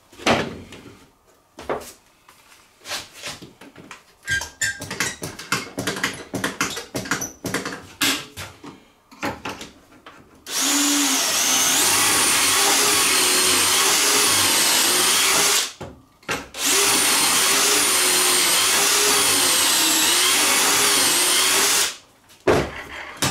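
Knocking and clattering of wood and a pocket-hole jig being set up, then a power drill boring pocket holes in two runs of about five seconds each with a short pause between, its pitch wavering under load.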